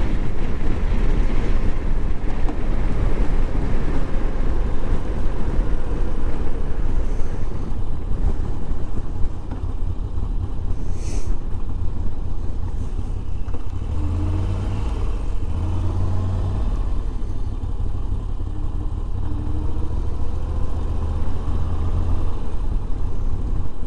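Moto Guzzi V85's air-cooled V-twin running under way, under a heavy rush of wind noise. The engine note comes through more clearly in the second half.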